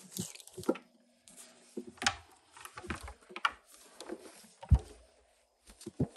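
Hands working wiring in a boat, routing a wire and zip-tying it: irregular rustles, clicks and knocks, with one heavy thump about three-quarters of the way through.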